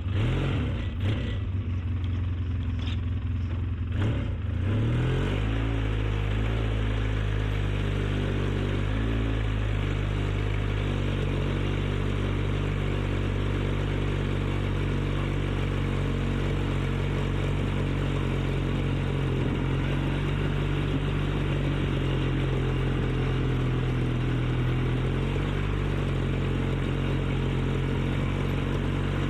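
ATV engine running in four-wheel drive, revving up about four seconds in and then holding a steady pitch. A few knocks and clatters are heard in the first few seconds.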